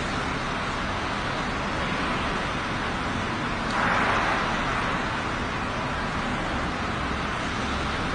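Steady background noise with no distinct events, and a brief louder swell about four seconds in.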